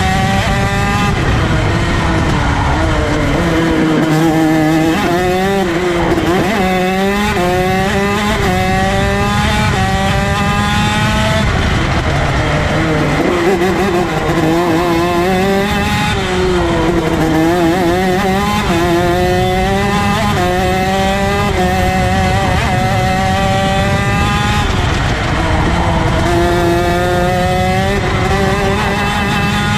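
ROK 125cc two-stroke shifter kart engine at racing speed. Its pitch climbs and drops back again and again as it shifts up through the gears, then falls away under braking and downshifts before it climbs once more.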